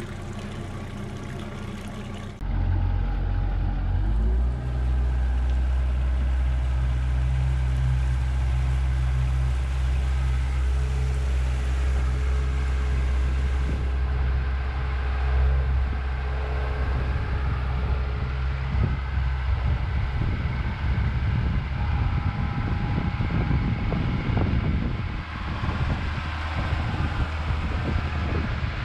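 An engine starts up about two seconds in, rises briefly in pitch, then runs steadily at a low, even pitch. From about halfway through, a rougher, uneven rushing noise joins it.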